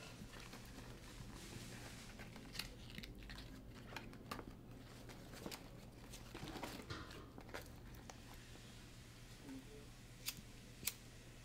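Faint rustling and small knocks of a hand rummaging among items in a cloth handbag, then two sharp clicks near the end as a cigarette lighter is struck.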